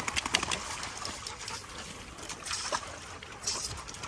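Water splashing and trickling, then a wet dog panting in short breaths about once a second.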